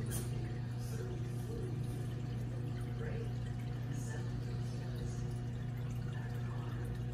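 Reef aquarium equipment running: a steady low pump hum with a faint wash of moving water.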